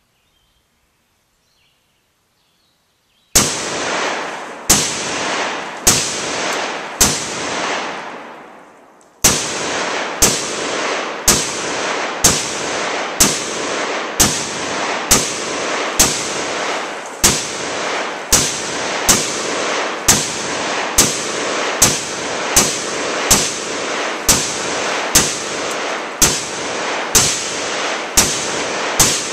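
Adcor Bear Elite 10.5-inch short-barrel AR-15 rifle firing 5.56 rounds, about three seconds in, then in steady semi-automatic fire at roughly one shot a second, with a short gap near the ninth second. Each sharp crack is followed by a long trailing echo.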